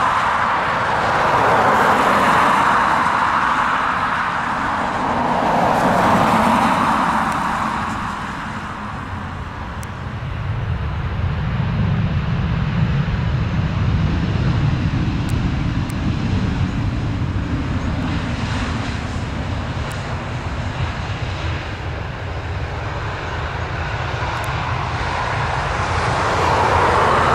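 Jet engines of a Ryanair Boeing 737 running on the runway after landing, a continuous noise with a low rumble in the middle stretch and a higher hiss at the start and near the end.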